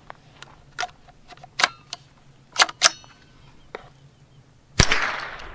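A few sharp metallic clicks as the Rock Island TM22 .22 rifle is loaded and readied, then a single .22 rifle shot near the end, the loudest sound, with an echo that dies away.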